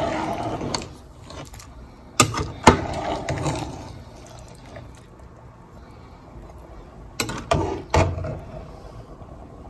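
A metal slotted spoon stirring rice and meat through boiling broth in a pan, sloshing and scraping, with sharp clinks of the spoon against the pan about two seconds in and again a few times around seven to eight seconds in.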